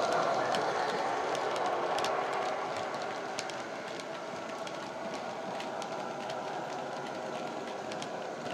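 Model freight wagons rolling past on the layout track, their wheels clicking irregularly over the rail joints. Under them, the Class 58's diesel engine sound from its LokSound decoder and ESU speaker fades over the first few seconds as the locomotive moves away.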